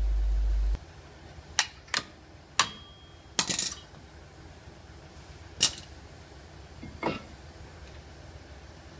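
Worn front brake pads of an Opel/Vauxhall Meriva being tapped out of the brake caliper carrier: about six sharp metal clinks and knocks, spaced out, one ringing briefly. A steady low hum cuts off under a second in.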